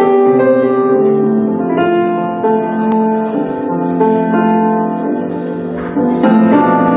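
Live band playing an instrumental passage without vocals, with keyboard to the fore over bass and guitar.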